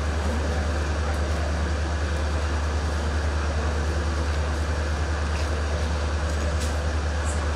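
Steady low mechanical drone with a noisy rumble over it, unchanging throughout.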